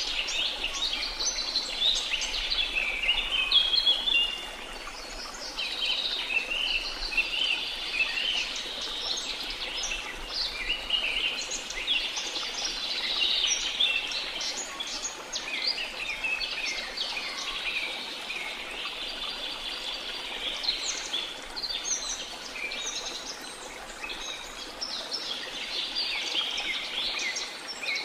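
A dense chorus of many birds chirping and trilling at once, over a faint steady rush of falling water.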